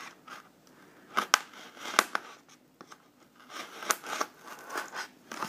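Scissor blade scraping and prying at the seam of a polystyrene foam case: irregular scratching and squeaking of foam with several sharp clicks, the loudest a little after one second and about two seconds in.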